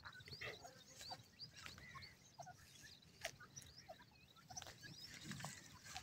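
Faint, scattered short chirps and soft calls from small birds, with a few light clicks.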